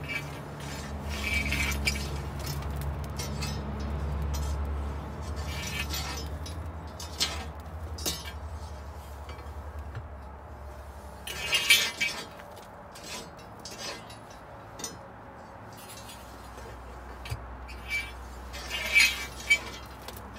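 Long metal clean-out rake scraping and clinking inside the steel ash chamber of a wood gasification boiler, dragging fine ash out into a galvanized metal ash can, with a few louder metal clanks, the loudest about midway and near the end. A low steady hum runs underneath for the first half and again toward the end.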